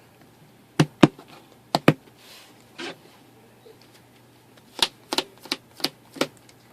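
Trading cards being tapped and set down on a tabletop: a series of sharp clicks, a few around the first couple of seconds and a quicker run of five or six near the end.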